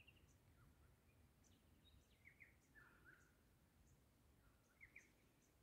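Near silence with faint bird calls: a quick trill at the very start, then scattered short chirps and a few falling notes.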